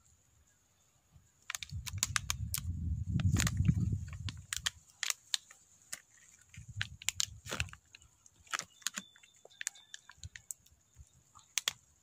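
Thin plastic bottle crackling and crinkling in irregular sharp clicks as it is squeezed and peeled off a sapling's root ball, with two spells of low rumbling.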